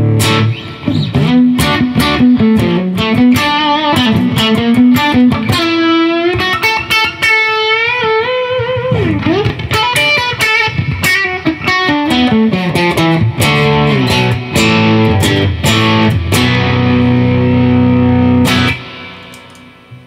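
Electric guitar with humbucker-sized P90 pickups through a light, Klon-style overdrive, with a little snarl. A held chord opens into single-note lead lines with string bends and vibrato mixed with chords, ending on a long held chord that dies away near the end.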